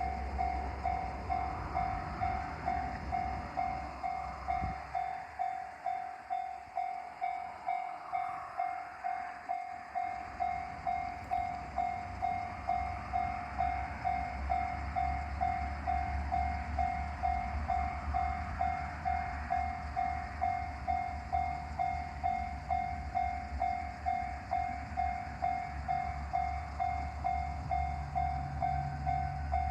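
Level-crossing alarm ringing its repeated electronic clang, about two strikes a second, over the low rumble of diesel railcars (1200 and 1500 series) at the crossing.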